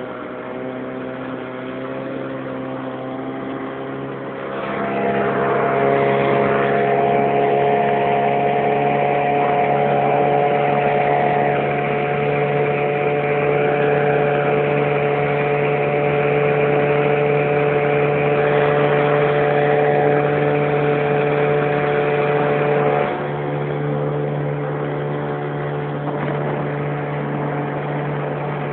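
1964 Evinrude Sportwin 9.5 hp two-cylinder two-stroke outboard motor running steadily on the water. It grows louder about four seconds in and eases back a little after about twenty-three seconds.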